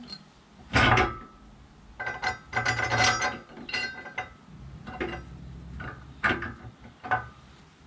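A steel mounting plate, hitch bracket and bolts clanking and rattling against the caravan's steel chassis while they are held in place and the bolts fitted loosely by hand. The clanks come as short, irregular knocks, busiest about two to three seconds in.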